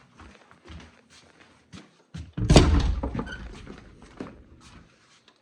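A few light knocks and taps, then a heavy thump about two and a half seconds in that fades out over a second or two.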